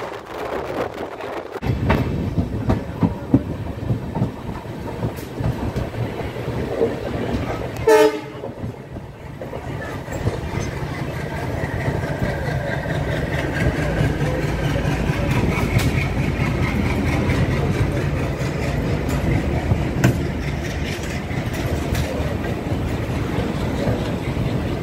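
Indian Railways express passenger coach running along the line, heard from its open door: a steady rumble of wheels and rushing air with clickety-clack over the rail joints. A short train horn blast sounds about eight seconds in.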